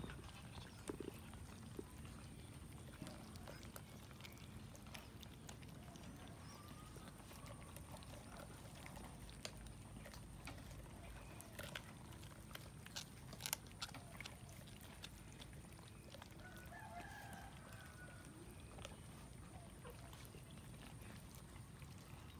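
Quiet sound of a crowd of cats chewing and tearing at a whole cooked chicken: scattered small clicks over a low steady hum, with a couple of faint distant calls, once around the middle and again later.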